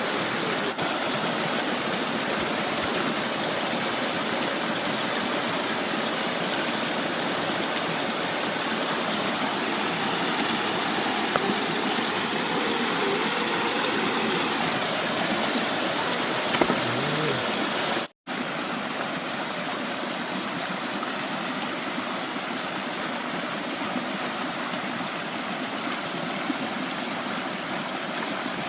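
Steady rushing of a mountain stream, an even hiss of flowing water, cutting out for an instant about two-thirds of the way through.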